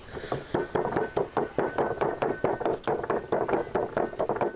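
Wooden pestle pounding salt and sugar in a mortar to make chili salt, with rapid, even knocks about four a second.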